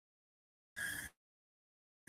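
Dead silence, as from a video call's noise gate, broken once about a second in by a brief faint sound.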